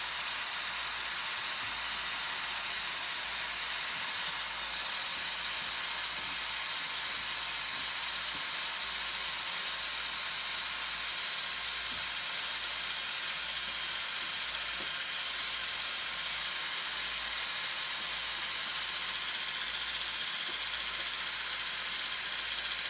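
Steady, unbroken spraying hiss, even in level and with no low rumble.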